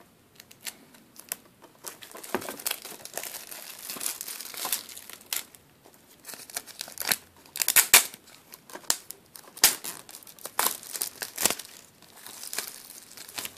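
Plastic shrink-wrap being torn and peeled off a Blu-ray case: irregular crinkling and crackling, loudest about eight seconds in.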